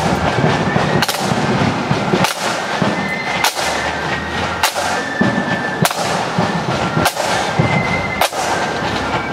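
Marching flute band playing: side drums drummed hard and continuously, with a heavy bass drum stroke about once a second and short high flute notes faintly above.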